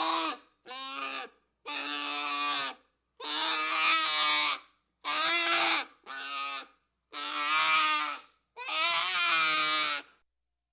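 Designed juvenile Tyrannosaurus rex creature calls: a string of about eight separate pitched cries, each up to a second and a half long, with short silent gaps between them.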